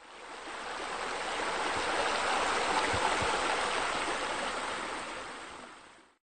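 Rushing, splashing water like a small rock waterfall spilling into a pool, fading in, swelling to its loudest about halfway through, and fading out again.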